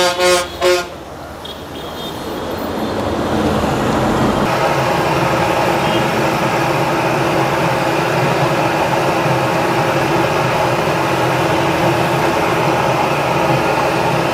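A vehicle horn honks in the first second. Then Maddur vadas deep-frying in a large wok of hot oil sizzle, building up over the first few seconds into a steady, dense hiss.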